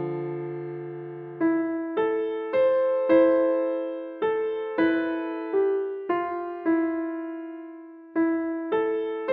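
Solo piano playing a slow, simple melody of single notes, about two a second, each struck and left to ring and fade. It opens over a low chord that dies away in the first couple of seconds, and near the end one note is held and fades before the melody picks up again.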